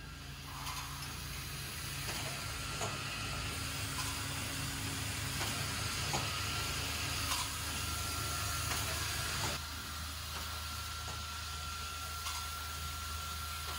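Automatic lotion pump assembly machine running: steady hum of its vibratory bowl feeders with a thin high tone, a hiss and scattered clicks of the mechanisms. The hiss and part of the hum drop away a little after halfway.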